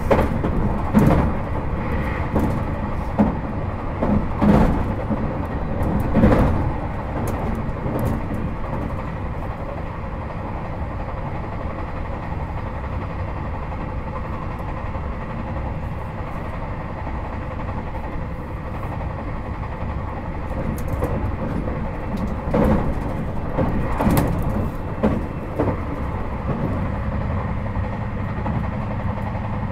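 JR Hokkaido 721 series 4000-subseries electric train (Toshiba GTO inverter motor car) running at speed, heard from inside the car: a steady rumble, with bursts of knocks and clatter from the wheels on the track in the first several seconds and again about three-quarters of the way through.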